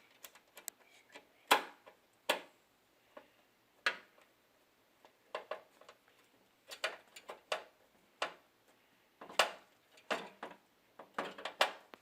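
Screwdriver and small metal screws clicking and tapping against the metal bracket of a network card in a desktop PC case, in irregular sharp clicks, the loudest about a second and a half in.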